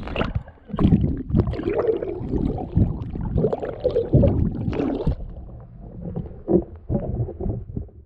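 Water sloshing and gurgling around a GoPro camera's waterproof housing, with irregular knocks and thumps that thin out near the end.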